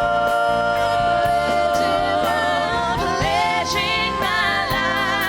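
Christian worship song: a singer holds one long note over the instrumental backing, then starts a new phrase with vibrato about three seconds in.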